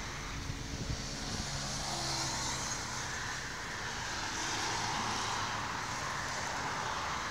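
Road traffic: cars going by, a steady wash of engine and tyre noise that swells and fades as vehicles pass.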